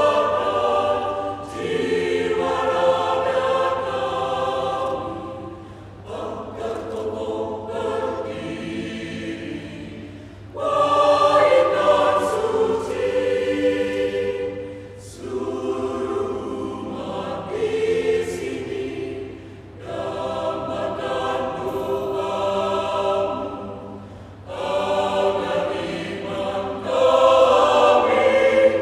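Mixed choir of men's and women's voices singing together in parts, phrase after phrase, each phrase of a few seconds swelling and then easing before the next.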